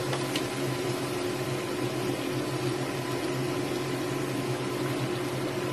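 Chicken sizzling in a wok, a steady hiss over a steady mechanical hum.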